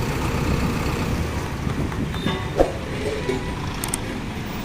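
Diesel engine of a JCB 3DX backhoe loader running steadily under work. A single sharp knock sounds about two and a half seconds in, with a few fainter clinks after it.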